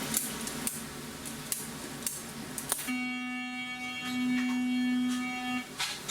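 Several sharp clicks of keypad buttons as an entry code is keyed in, then a door-release buzzer sounds steadily for about three seconds as the entry door's lock is released.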